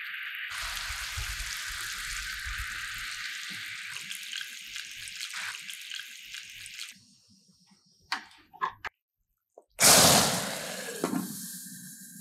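Sugar syrup for caramel sauce boiling in a small pan with a steady hiss. A few light clicks follow, then a loud sudden sizzle about ten seconds in that dies away over a couple of seconds, as hot water is poured into the hot caramel.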